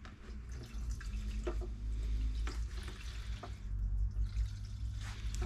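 Petrol running through a clear siphon tube from a motorcycle's fuel tank into a plastic jerry can, a steady trickle once the siphon has started. A few light knocks come about a second apart in the middle.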